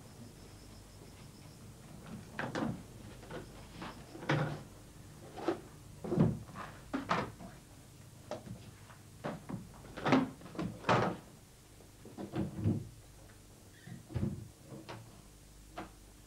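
A hard briefcase being handled, opened and rummaged through: a string of irregular knocks, clicks and clatters as the lid, catches and contents are moved.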